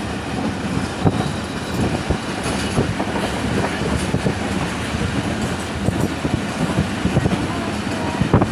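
Passenger train running at speed, heard from inside a carriage: a steady rumble of wheels on rail, with frequent irregular knocks as the wheels pass over the track.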